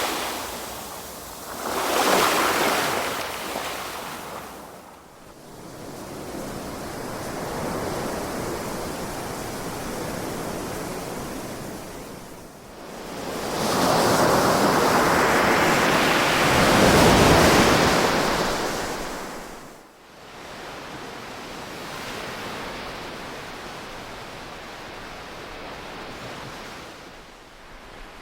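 Ocean waves breaking and washing in: two short surges near the start, then a long, louder wave swelling up past the middle and falling away, followed by a softer, steady wash.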